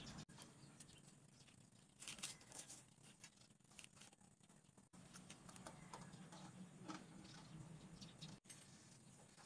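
Near silence with faint handling sounds of wooden popsicle sticks being laid and tapped on a wooden board: scattered light clicks and taps, a small cluster about two seconds in, over a low steady hum.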